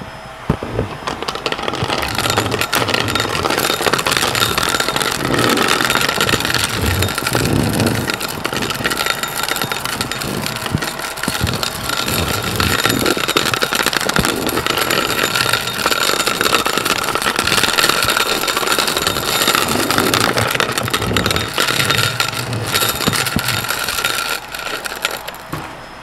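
Corded stick vacuum cleaner running with a steady high whine, coming up to speed in the first couple of seconds and cutting off near the end. Its head is pushed back and forth over a wood floor and a rug.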